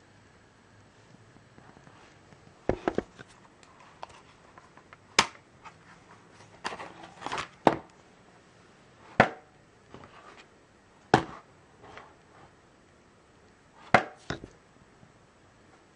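Plastic DVD case and its hinged disc trays being handled: a series of sharp clicks and clacks, one to three seconds apart.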